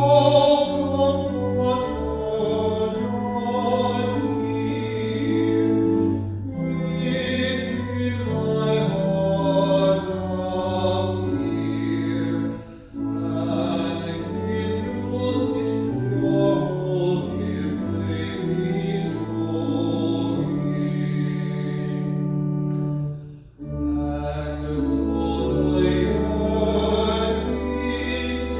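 Sung music with instrumental accompaniment, held notes in chords with vibrato in the voice, moving in phrases broken by short pauses about 13 and 23 seconds in. A long low bass note sounds under the last few seconds.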